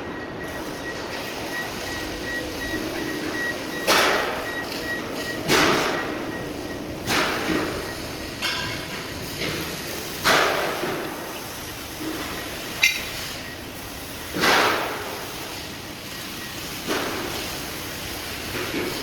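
Loud metal bangs and clanks at irregular intervals of one to three seconds, each fading quickly, over a steady workshop din: steel scaffolding parts and metalworking machinery in a factory. A faint steady high tone sounds for the first few seconds.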